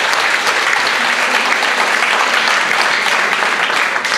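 A crowd applauding: audience and performers clapping together, steady and loud, starting to die down at the very end.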